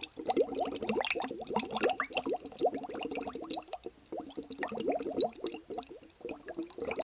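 Water bubbling and gurgling: a dense run of quick small blips, cutting off suddenly near the end.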